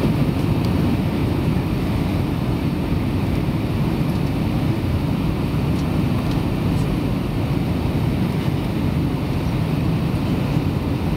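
Steady low engine and airflow noise inside an Airbus A320 cabin on approach. A faint steady tone rides over it.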